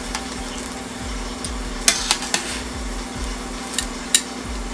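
Metal tongs clinking against a stainless steel saucepan while fresh pasta is stirred in boiling water. There is a quick cluster of sharp clinks about two seconds in and two more near the end, over a steady hum.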